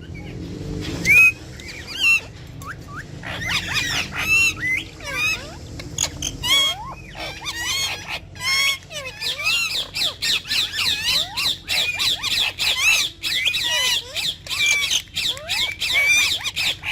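Ringneck parrots chattering and squawking in quick, high-pitched, warbling calls that bend up and down, nearly without pause. A low rumble sits underneath for the first several seconds.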